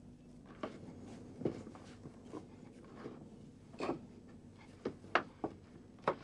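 Hands kneading a sticky carp-bait (boilie) paste of eggs, oil and powder in a plastic basin, making short, irregular sounds, about ten over a few seconds, the loudest a little after 5 seconds.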